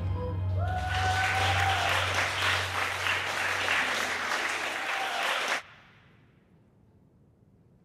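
Audience applauding in a hall, with a shrill whistle near the start and a low note from the stage fading out underneath. The applause cuts off suddenly about five and a half seconds in.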